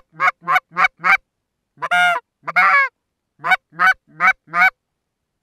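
Hand-held goose call blown close by: a quick run of short, loud honks, each breaking from a low note up to a higher one, two longer drawn-out notes about two seconds in, then four more honks before it stops.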